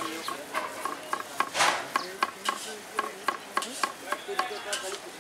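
Knife slicing bell peppers on a wooden chopping board: a quick, even run of blade taps about four or five a second, with one longer, louder rasp about a second and a half in.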